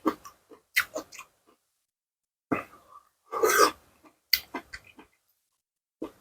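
Close mouth sounds of a man eating spicy seafood salad: irregular wet chewing and smacking in short bursts, with one louder, longer burst of breath and mouth noise a little past halfway.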